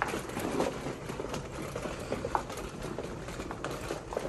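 Plastic shopping trolley rattling and clicking as it is pushed along a supermarket aisle, a steady clatter of small irregular ticks over store background noise.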